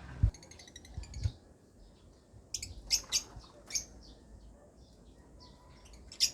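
Lovebirds chirping: a quick chattering run of short high calls about half a second in, a few loud sharp chirps around three seconds in, and another cluster near the end. Two dull low thumps come in the first second or so.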